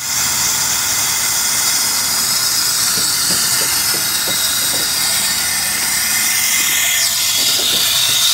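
Water feature fill valve hissing steadily as water runs through it into the basin. This is the sound of the valve open and filling, the way a toilet fill valve works.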